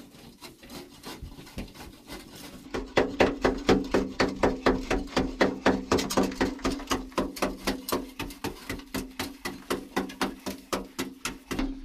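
Hand tools scraping at dry packed earth, then from about three seconds in a fast, even run of sharp knocks.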